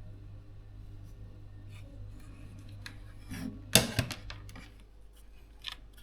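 A few sharp clicks and light clatters of small tools or parts being handled, loudest about four seconds in, over a steady low electrical hum.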